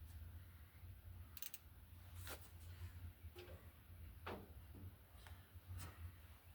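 Faint, scattered clicks and clinks of a wrench on a battery cable nut, about five in all, over a low steady hum.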